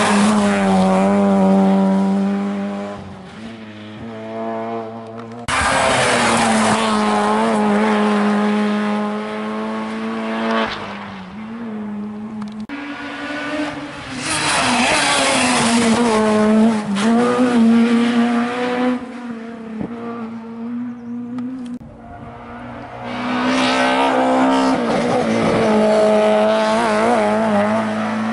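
Rally cars taking a bend at full attack one after another, about four in turn, engines revving hard and falling away through gear changes; among them a Citroën Saxo at the start and a BMW E30 M3 near the end. The sound jumps abruptly between cars where the footage is cut.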